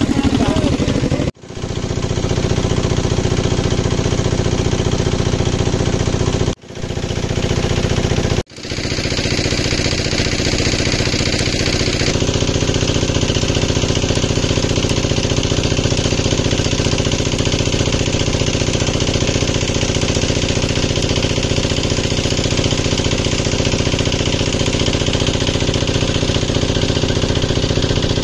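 An engine running steadily with a fast knocking beat. It cuts out abruptly three times in the first nine seconds, then runs on unbroken.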